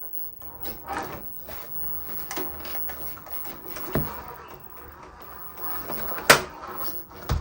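Handling noises of objects being moved about on a work surface: scattered knocks and light rustling, with a dull thump about four seconds in and a sharp click, the loudest sound, about six seconds in.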